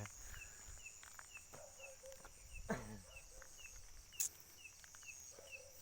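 Night insects: a steady high trill that stops near the end, and short chirps repeating two to three times a second. A faint dog bark comes about halfway through, and a sharp click about four seconds in.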